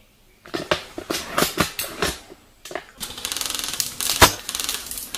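Airsoft gunfire: a scatter of sharp clicks and knocks, then from about three seconds in a fast, steady rattle of full-auto airsoft fire. One sharp, loud shot cracks through it a little past four seconds.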